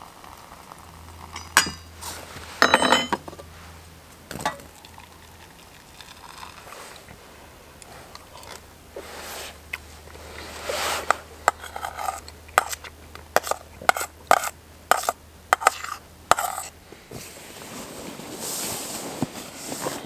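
Spoon and metal camp pot clinking and scraping: a few ringing clinks in the first few seconds, then a quick run of sharp taps and scrapes for several seconds.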